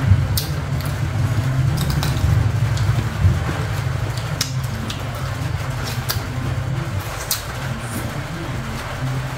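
A steady low engine-like rumble, with scattered short crisp crunches of bites and chewing of unripe green mango.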